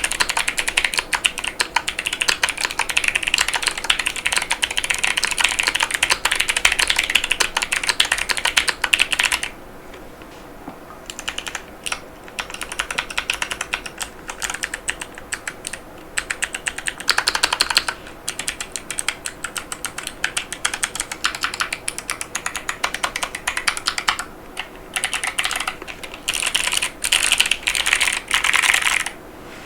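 Fast typing on a Keychron Q6 Max mechanical keyboard with clicky Kailh Box Jade switches and PBT keycaps, the keys clicking sharply. A steady rapid run of keystrokes for about the first third, then it slows to scattered keypresses broken by a few short quick runs.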